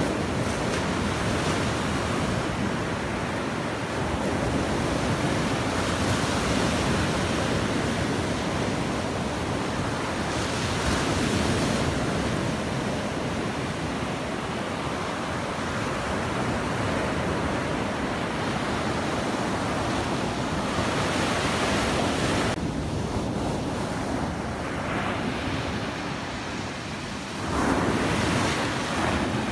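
Sea surf breaking and washing up a sandy beach: a steady rushing wash that swells and eases, with a louder surge near the end.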